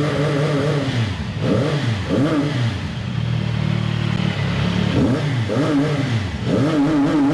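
CFMoto 675SR three-cylinder engine being revved: the engine note rises and falls in quick blips, twice in the first few seconds and twice again near the end, settling to a steady idle in between.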